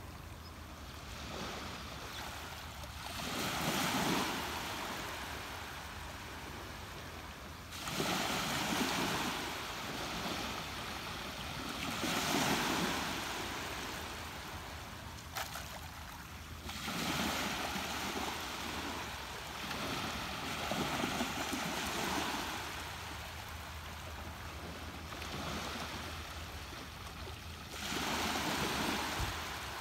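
Ocean waves breaking and washing in, the surf swelling and fading about every four to five seconds over a steady low rumble.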